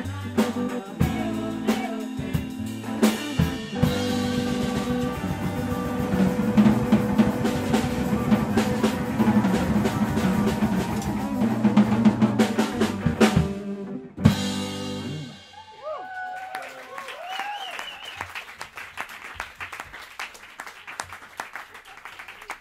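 Live band of drum kit, bass, electric guitar and keyboard playing a pop-jazz tune, ending on a final accented hit about fourteen seconds in and ringing out. Clapping and cheering with a few whoops follow.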